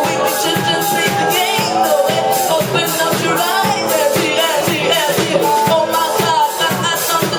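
Live trio playing an upbeat groove: a wavering lead melody over a steady beat and bass.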